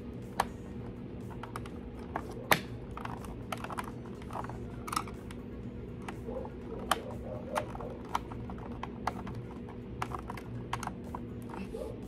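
Irregular clicks and taps of hard plastic parts on a Hoover upright vacuum's brush-roll housing being handled and fitted back together, and a screwdriver at work, as the vacuum is reassembled after a belt change.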